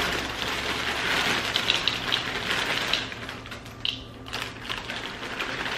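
Dry cereal pieces poured from a plastic bag into a glass bowl, a dense patter of small clicks and rattles. It thins out a little past halfway, then picks up again near the end.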